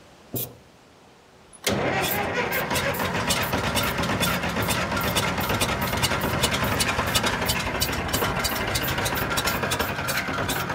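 Caterpillar D4D bulldozer's diesel engine starting up less than two seconds in, then running steadily with a fast, uneven knocking beat.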